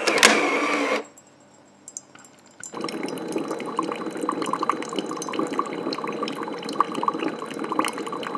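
Ninja Hot & Cold Brewed System coffee maker brewing: a loud hiss lasting about a second, then after a short pause a steady stream of hot coffee pouring and dripping into a mug.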